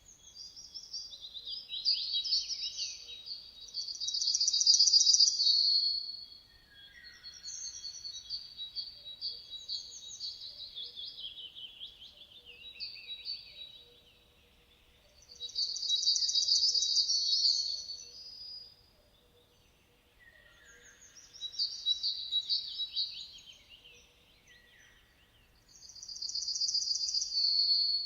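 Songbirds singing high, fast trilled phrases, with several loud bursts of song separated by short pauses.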